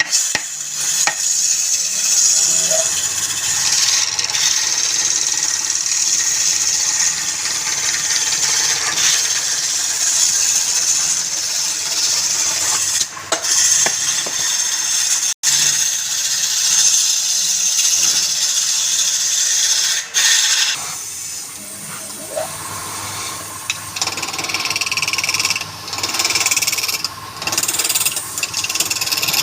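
Wood lathe running with a tool working the spinning wood: a steady hiss over a low motor hum. The sound cuts out for an instant about halfway through.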